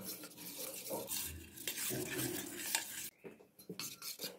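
Spoon stirring a thick flour-and-water batter in a stainless steel bowl: wet scraping and squelching for about three seconds, then a few light clicks of the spoon against the bowl.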